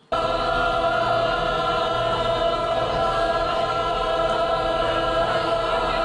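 A single choir-like musical chord held steady, starting abruptly and cutting off sharply after about six seconds.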